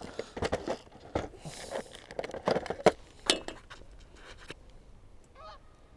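Small irregular clicks and taps of fingers and a small tool handling a lead split shot and fixing it onto a fishing line, busiest in the first few seconds. A short faint bird call about five seconds in.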